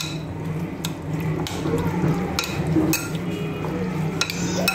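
A spoon stirring chicken in a wet egg-and-cream mixture in a glass bowl, the spoon clinking against the glass several times. A steady low hum runs underneath.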